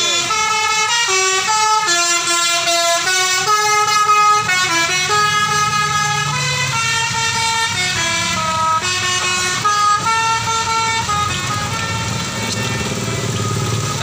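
Bus 'telolet basuri' musical air horn playing a fast melody, several horn tones sounding together and stepping from note to note. About eleven seconds in the melody stops, leaving the low rumble of the passing bus's engine.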